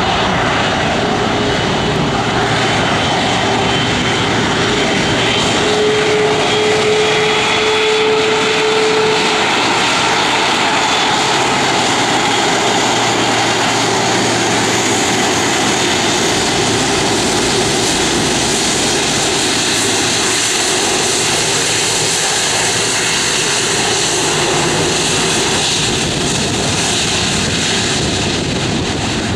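Airbus A330-200's twin jet engines at taxi power as the airliner rolls past: a loud, steady roar with a whine through it that brightens and rises slightly a few seconds in.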